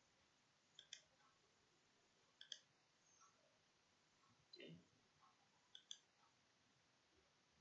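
Faint computer mouse clicks: about four clicks spread through, each a quick press-and-release pair of ticks, with a soft low thump about halfway through.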